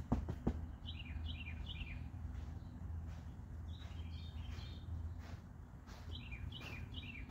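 A songbird calling in quick runs of about three short, falling chirps, repeated several times, over a steady low outdoor hum. A couple of sharp clicks come right at the start.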